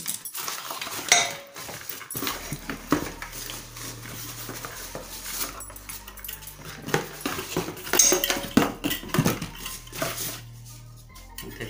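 Cardboard packing insert and paper wrapping rustling and crinkling as they are handled and pulled out of a new metal pressure cooker, with irregular clinks and knocks of the cooker body and its parts.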